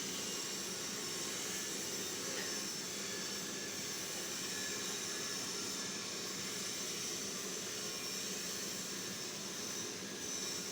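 Electric welding arc burning steadily while a pipe is arc welded, giving an even hiss.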